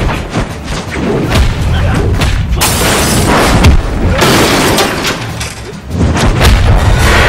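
Film fight-scene sound effects: a rapid string of punch and kick hits and body thuds as men are thrown into office desks, with two longer crashes about three and four seconds in, over a driving action score with heavy booms.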